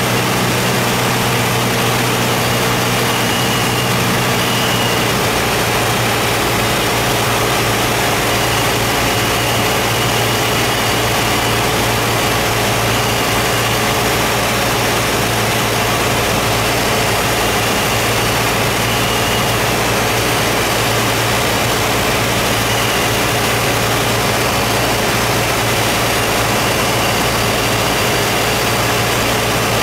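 Aircraft engines running steadily on final approach to landing: a loud, constant drone with a strong low hum, heard from aboard the plane. A set of low tones fades out a few seconds in.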